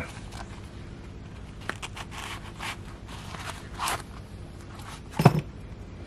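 Handling noise of a nylon zip pouch with felt-lined pockets as a folding pocket knife is drawn out of it: soft rustling and scraping strokes with a few light clicks, and one louder bump about five seconds in.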